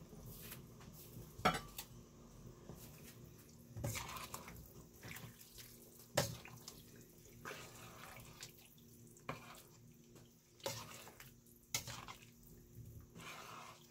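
A metal spoon stirring in a stainless steel pan of soup: irregular clinks of the spoon against the pan and liquid sloshing.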